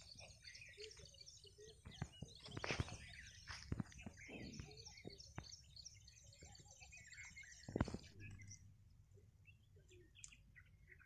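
Birds chirping, faint: many short, high calls for about eight seconds, then fewer and sparser. A few sharp clicks come in among them, the loudest about eight seconds in.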